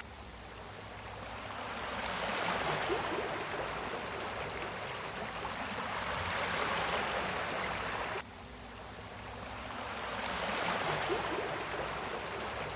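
Recorded sea waves washing in and out, a steady rush that swells and recedes every few seconds, with a sudden dip a little past halfway.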